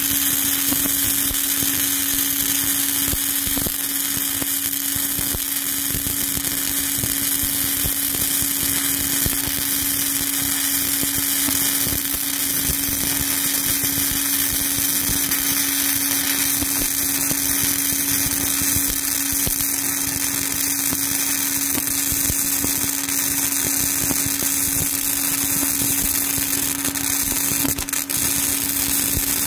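Flux-cored arc welding with Lincoln NR-211 self-shielded wire: the arc gives a continuous crackling hiss as a bead is run, with no break, over a steady low hum.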